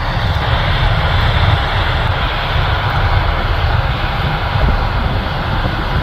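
Steady machinery noise of a John Deere tractor running while its grain cart auger unloads corn into a semi trailer: a constant low engine rumble with a hiss over it.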